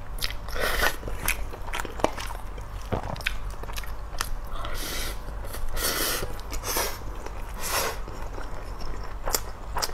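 Close-miked eating sounds: wet chewing and mouth smacking, broken by several sharp clicks of a spoon against a stainless steel pot.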